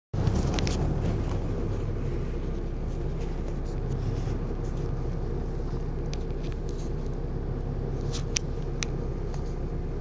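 Volvo B7RLE bus engine running, heard from inside the passenger saloon: a steady low drone, with a few sharp clicks or rattles, the loudest about eight seconds in.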